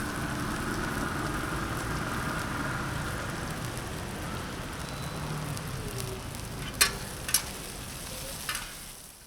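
Steady hissing noise with a low hum beneath it, then a few sharp clicks near the end before it fades out.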